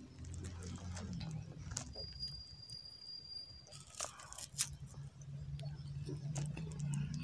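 Biting and chewing a chocolate biscuit: soft wet mouth sounds, with two sharp crunches about four seconds in as a piece is bitten off.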